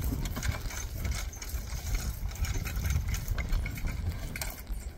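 Wind buffeting the microphone with an uneven low rumble, over irregular clicking and rattling from the draft horses' harness and the horse-drawn walking plough as it is pulled through the field.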